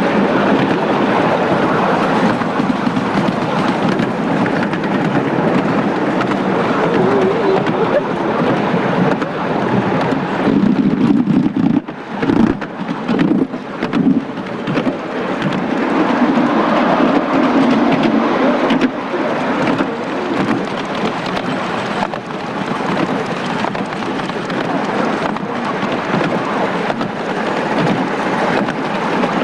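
Running noise of a 7.25-inch gauge miniature railway train heard from one of its passenger cars: a steady rumble of wheels on the track, briefly dropping away about twelve seconds in.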